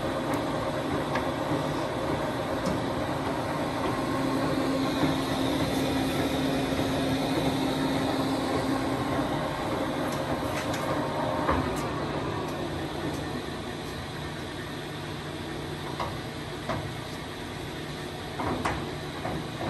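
Poreba TPK90 engine lathe running with its large four-jaw chuck spinning: a steady mechanical hum with steady tones from the headstock drive. About twelve seconds in the spindle stops and the machine noise drops, followed by a few light clunks as the stopped chuck is handled.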